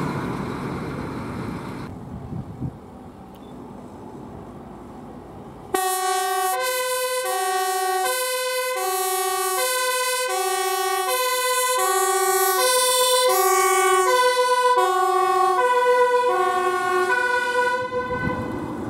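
Fire truck engine fading as it pulls away. About six seconds in, a fire service Volkswagen Transporter van's two-tone siren starts suddenly, alternating between a high and a low note about every 0.7 seconds as the van drives past.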